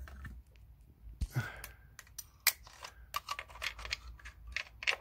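A run of light, irregular metallic clicks and taps, more of them in the second half, as a magnetic pickup tool works a small steel injector hold-down clamp loose inside a BMW N43 engine bay.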